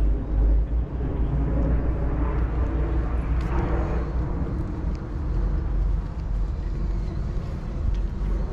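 Outdoor ambience with a steady low rumble and a distant motor vehicle whose engine sound swells and fades a few seconds in.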